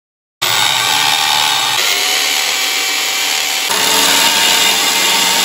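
Electric drill boring into a plastered wall, running steadily with a motor whine; it starts about half a second in.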